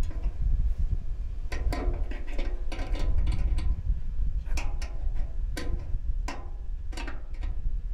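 Needle-nose pliers gripping and working at a tight nut on a microwave oven's sheet-metal chassis: irregular metal clicks and ticks, a few ringing briefly, over a steady low rumble.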